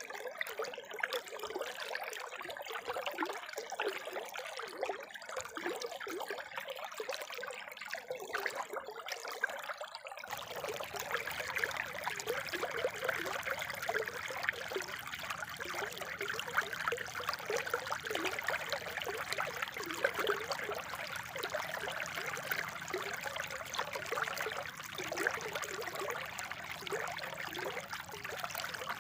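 Spring water trickling and bubbling steadily. About ten seconds in, the sound switches abruptly to a fuller, denser flow.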